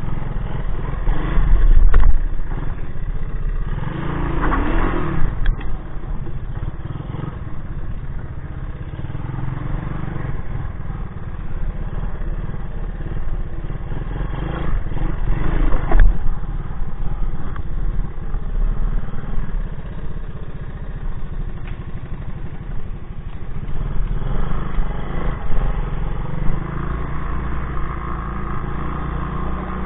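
1984 Honda ATC 200S three-wheeler's single-cylinder four-stroke engine running on a trail, its note rising and falling with the throttle. A few sharp knocks and clatter from the machine jolting over logs and roots, the loudest about two seconds in and again about halfway.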